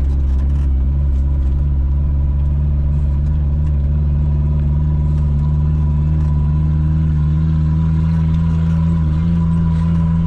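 Suzuki Samurai 4x4's engine running at a steady, unchanging pitch.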